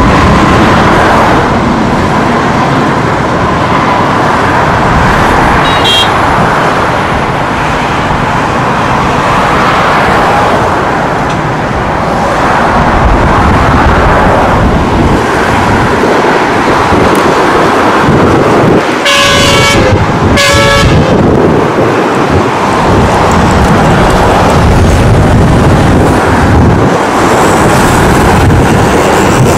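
Convair 580's Allison turboprop engines running as the airliner lands, over steady highway traffic noise. A car horn sounds twice about 19 and 20 seconds in.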